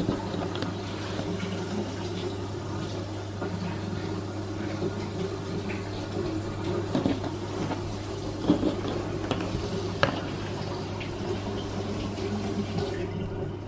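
A steady low mechanical hum, with a few soft taps and rustles from hands folding and pressing puff pastry around a vegetable filling on a worktop, the clearest taps about seven, eight and a half and ten seconds in.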